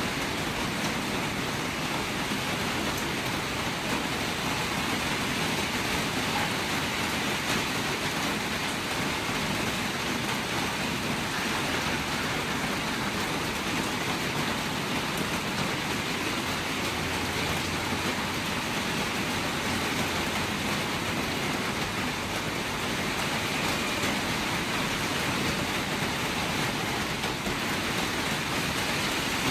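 Steady rain, an even hiss that goes on without a break.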